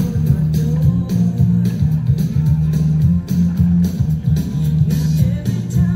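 Music with guitar over a loud bass line and a steady beat.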